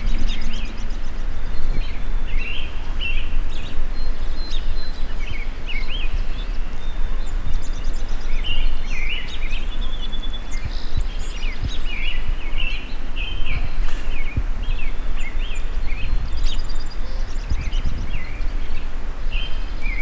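Wild songbirds chirping and singing over and over, many short calls and trills overlapping, over a steady low outdoor rumble.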